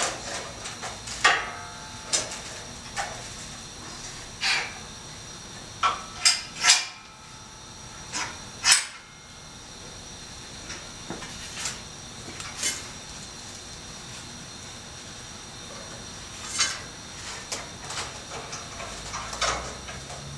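Clamps on a homemade angle-iron sheet metal brake being loosened and moved back: irregular metallic knocks, clanks and clicks, some ringing briefly. The loudest come about a second in and around seven and nine seconds.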